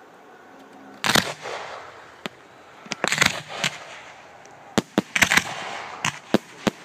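Aerial fireworks bursting: one loud bang about a second in with crackle trailing after it, a quick cluster of bangs and crackling around three seconds in, then several more sharp bangs in quick succession in the second half.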